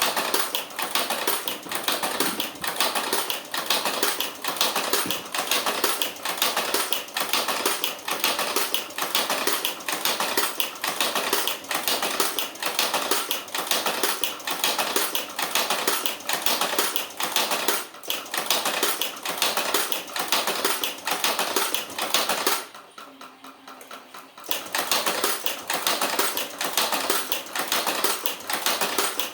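Rapid, dense mechanical clattering from a running Karaşimşek machine. It drops away for about two seconds near the 23-second mark, then starts again.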